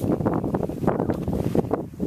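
Wind buffeting the microphone, a loud, uneven rumble.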